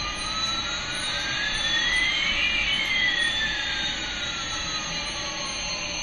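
Toy Airbus A380's electronic jet-engine sound effect from its small speaker: a steady hissing whoosh with one tone rising in pitch while another falls, the two crossing about halfway through.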